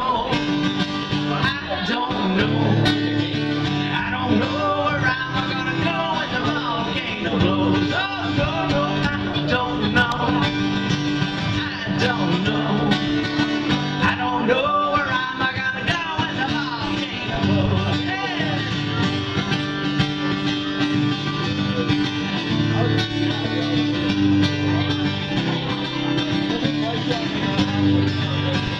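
Steel-string acoustic guitar strumming a song, with a man singing over it at times.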